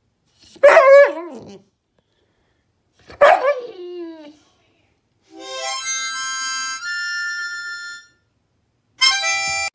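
A dog howling twice, each howl wavering and falling in pitch. Then a few held musical notes step up and down in pitch, and a short chord sounds near the end.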